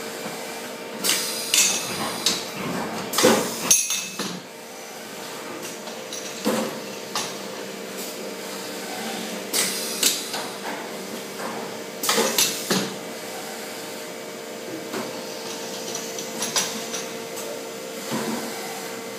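Automated CNC machining equipment running: a steady machine hum with irregular metallic clanks and knocks, and a few short hissing air blasts.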